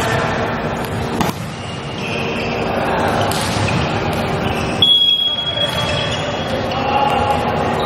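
Echoing noise of a large indoor gym with a single knock about a second in; about five seconds in a referee's whistle blows one long, steady high note, the signal to serve.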